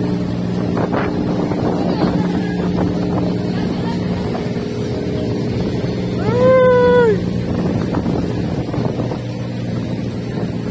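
A ship's engine running with a steady low drone, with wind on the microphone. About six seconds in, a single loud pitched tone sounds for about a second, rising at its start and dropping away at its end.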